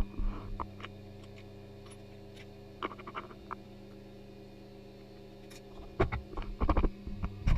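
Scattered light clicks and knocks of tools or parts being handled, over a steady low hum. They come in small clusters near the start, about three seconds in, and more densely in the last second and a half.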